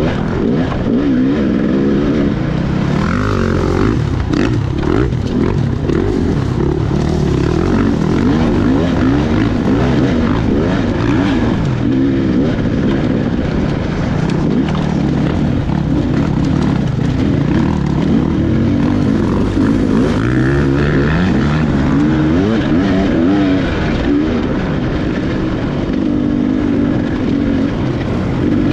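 Dirt bike engine ridden hard over rough rocky ground, revving up and dropping back again and again as the throttle is worked, with scattered knocks and rattles from the bike.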